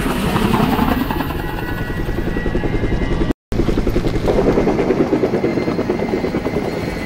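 Helicopters in flight, their rotors thudding in a fast, steady rhythm. The sound cuts out completely for a split second about halfway through.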